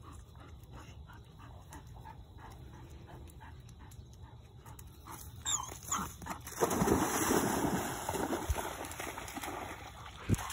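Labrador retriever panting softly, then about six and a half seconds in a loud splash and a few seconds of churning water as the dog plunges into the river and swims out.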